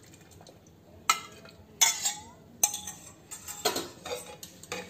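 Steel ladle clinking and scraping against stainless-steel pots as thick rice-flour starch is scooped from one pot into a pressure cooker and stirred in, with about six sharp clinks from about a second in.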